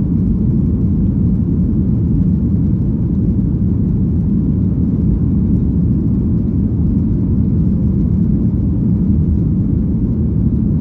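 Jet airliner's engines and rushing air heard inside the cabin during the climb after take-off: a steady, low, even rumble that does not change.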